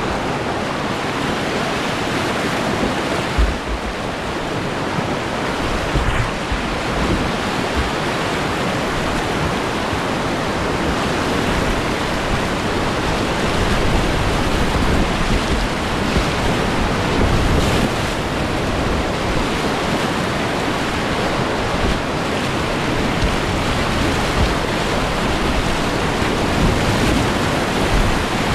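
Whitewater rapids of the Nantahala River's Cascades at 250 cfs rushing loudly and steadily around a kayak, heard up close from the boat as it runs the rapid. A few brief low thumps stand out, once about three seconds in, again around six seconds and around seventeen seconds.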